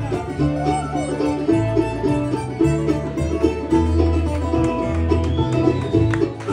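Acoustic string band playing an instrumental bluegrass-style passage: picked strings over a steady, stepping bass line, with a few sliding melody notes.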